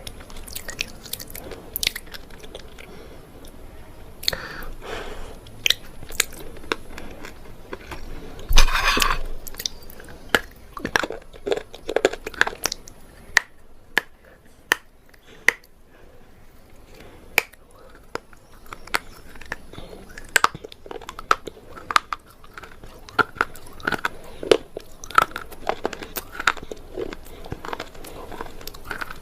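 A person biting and chewing something hard and dry, unsoaked in water: many sharp crunches and cracks throughout, with one loud, longer crunching bite about eight and a half seconds in.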